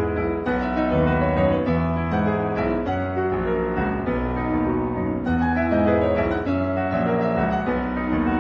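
Background piano music, a steady run of held notes and chords.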